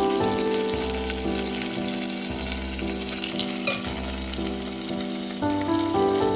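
Food frying with a steady sizzle, with background music carrying a melody and bass notes. One sharp click about three and a half seconds in.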